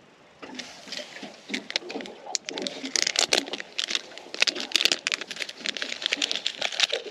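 Plastic-and-card fishing hook packet crinkling and crackling as it is handled and opened by hand, the crackle growing denser about two and a half seconds in.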